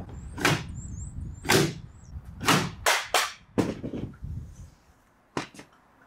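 Plastic detergent drawer of a Bosch front-loading washing machine being slammed in and yanked out hard, about nine sharp bangs and clacks at an irregular pace until it comes out; the last few are weaker.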